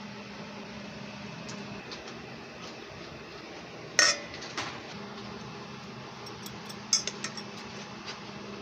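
Metal spoon clinking against a stainless steel bowl while stirring coated potato strips: one sharp clink about four seconds in, a lighter one just after, then a few quick light clinks about three seconds later.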